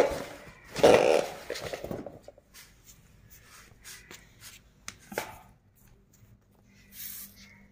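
Handling noises: loud rustling and scraping of a cardboard box near the start and about a second in, then scattered light taps and clicks, with one sharper knock about five seconds in.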